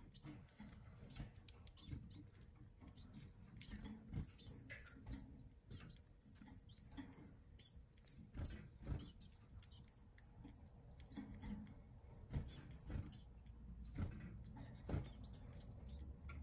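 Double-collared seedeater (coleiro) nestling begging with rapid, thin, high-pitched peeps, several a second, as the male feeds it at the nest, with a few soft knocks in between.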